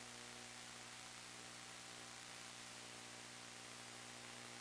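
Steady electronic hiss with a low, unchanging hum: line noise on the audio track of the FPV video link's DVR recording.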